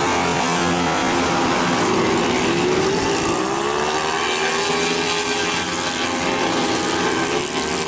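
Several racing automatic scooters (131cc stock class) at high revs, their engine notes overlapping. The pitch rises as they accelerate out of a corner and falls away again from about halfway through.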